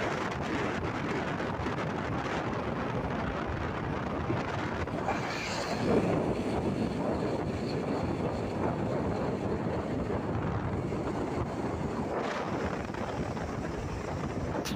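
Wind rushing over the microphone and road noise while riding along a busy road, with passing traffic. There is a brief louder swell about six seconds in.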